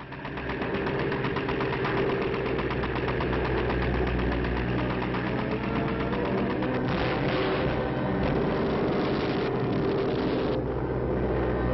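Steady drone of a twin-engine PBY Catalina flying-boat's radial engines, heard with a fast, even pulse. A broader hiss joins it for a few seconds in the second half.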